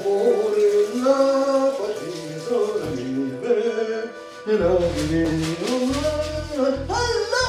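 Background music: a song with a singing voice, and a low bass beat that comes in about halfway through.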